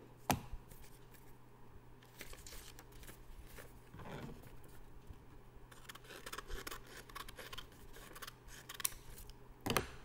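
Scissors cutting a sheet of paper into smaller squares: a run of short snips, with the paper rustling as it is handled. The sharpest clicks come just after the start and shortly before the end.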